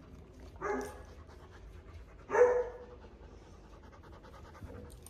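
A dog panting close to the microphone. Two short voiced sounds come about two-thirds of a second and two and a half seconds in, the second louder.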